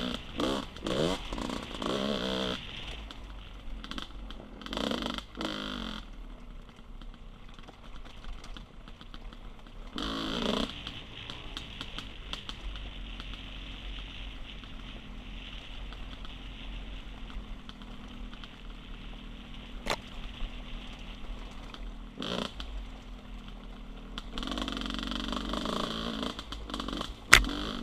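Dirt bike engine heard from the rider's helmet, revving up and down in short bursts on and off the throttle, with a steadier low running through the middle stretch. A single sharp knock comes near the end.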